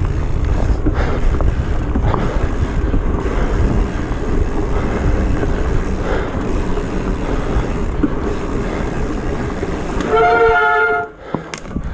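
Wind buffeting the microphone over tyre and trail noise from a bike riding through mud in the rain. Near the end comes a loud squeal with several overtones, lasting about a second, typical of wet disc brakes bringing the bike to a stop, after which the riding noise drops away.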